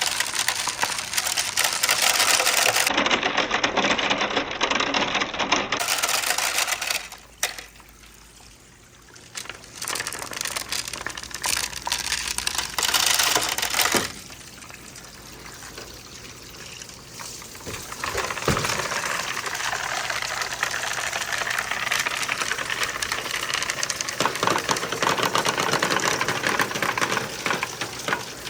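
Water running down the channels of a wooden marble run while marbles roll and clatter along the wooden track in a rapid run of small clicks. The sound drops away for a few seconds about seven seconds in and eases again near the middle.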